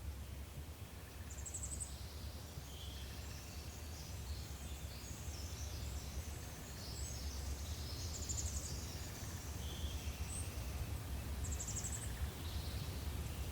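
Forest ambience: small birds chirping, with several short, very high trills, over a steady low background rumble.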